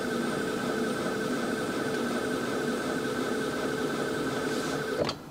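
Electric standing-desk lift motor running with a steady hum, stopping about five seconds in.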